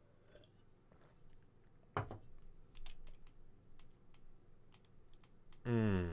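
Scattered light clicks of a computer keyboard and mouse at a desk, with a single louder knock about two seconds in. Near the end a man gives a short hum that falls in pitch, the loudest sound here.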